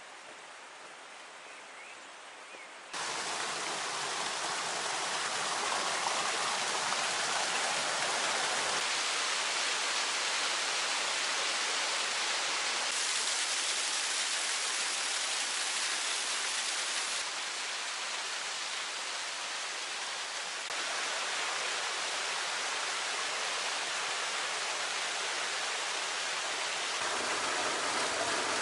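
Water rushing and splashing as it falls over rocks in a small waterfall: a steady, even rush that starts abruptly about three seconds in and jumps in level several times.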